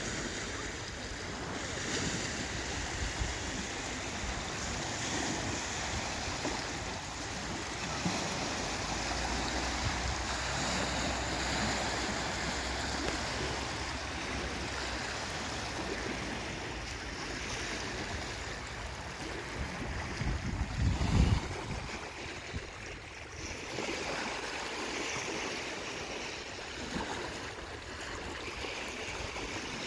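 Small lake waves lapping on a sandy shore, with wind on the microphone; a louder low rumble comes about two-thirds of the way in.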